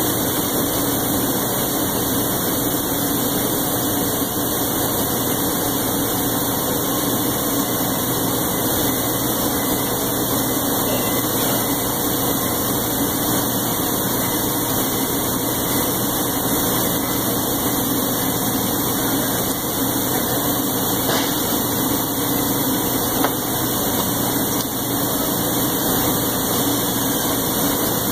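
A steady mechanical drone with a hum, unchanging throughout.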